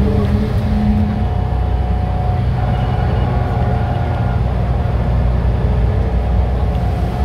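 Diesel engine of a Dennis Trident double-decker bus running steadily under way: a constant low drone with a thin higher whine that steps up slightly about two and a half seconds in.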